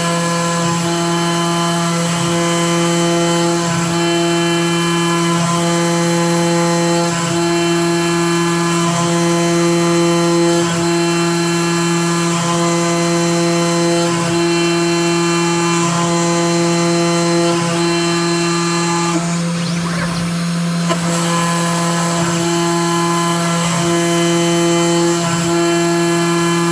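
CNC router spindle running steadily with a small end mill cutting white plastic sheet: a constant hum with a whine above it. A second tone comes and goes about every two seconds as the machine moves through its passes, and the higher tones drop away briefly about 20 seconds in.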